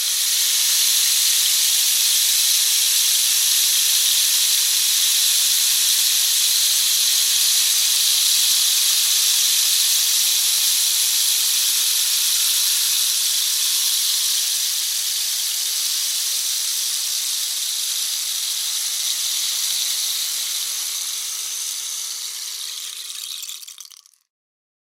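Rain stick tipped over, its fill cascading down the tube in one long, continuous high rustling hiss. The pour slowly thins out over its second half and stops near the end.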